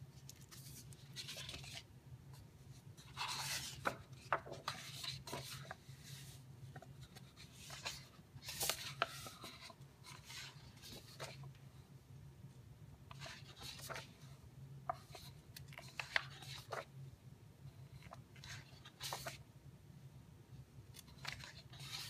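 Pages of a large hardcover photo book being turned by hand one after another: brief, irregular paper swishes and rustles, some ending in a light slap as the page lands, over a faint steady hum.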